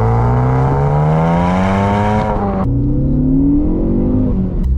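Ford Focus ST engine accelerating hard, its pitch climbing steadily. Just past halfway the sound changes abruptly and the pitch falls, then it climbs again.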